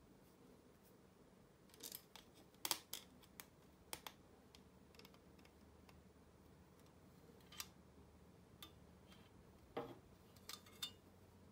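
Faint, scattered clicks and taps of thin aluminium-alloy sheet parts and small bolts being handled and fitted together by hand, in a cluster about two seconds in and again near the end.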